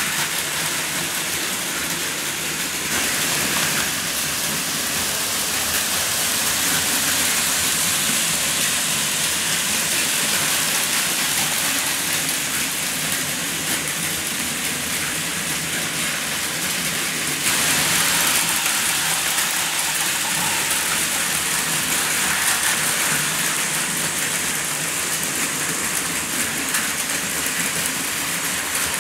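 Toy and model trains running on a layout, Plarail Advance trains on plastic track alongside KATO N-gauge trains: a steady hissing rattle of small motors, gears and wheels on track. It grows a little louder about three seconds in and again past the middle.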